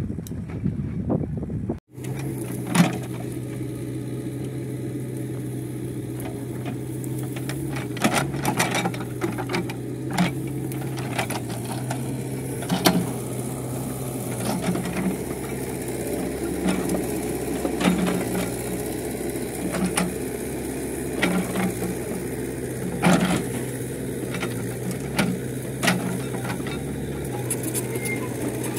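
An engine running steadily at a constant speed, with irregular knocks and clicks over it, starting just after an abrupt cut about two seconds in.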